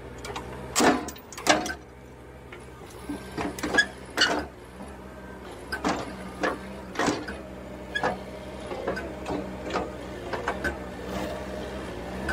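Caterpillar telehandler's diesel engine running steadily, with irregular sharp metal clinks and knocks from the lifting chain and the hoisted engine, the loudest in the first few seconds.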